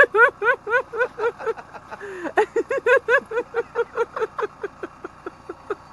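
A woman laughing at length: a quick run of short 'ha' pulses, about four or five a second, fading off near the end.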